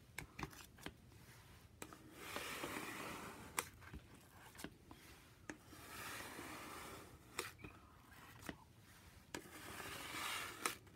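A plastic credit card scraping excess shaving cream and acrylic paint off a marbled paper sheet, in a few slow wet strokes with light clicks between them.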